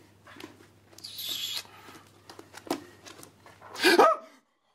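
A man's loud startled yell near the end, following a brief rustle about a second in and a few soft clicks; the sound cuts off abruptly just after the yell.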